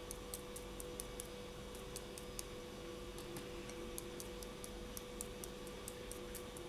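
Toothbrush bristles pounced against a polymer clay bead, making faint, irregular ticks a few times a second over a faint steady hum.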